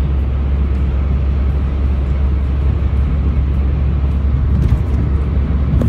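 Steady road and engine noise inside a moving car's cabin at cruising speed, mostly a low rumble with tyre hiss over it.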